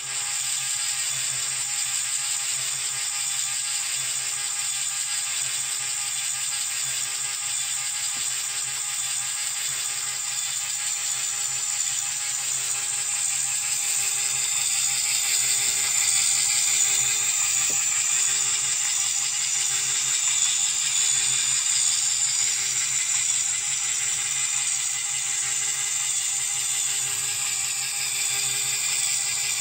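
Small LEGO electric motor running steadily, its plastic gears and crank linkage whirring and clattering as they rock a computer mouse back and forth.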